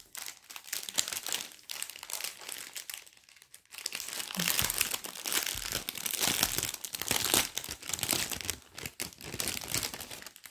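Crinkling of plastic bags holding diamond painting beads as they are handled, a dense crackle that gets louder from about four seconds in.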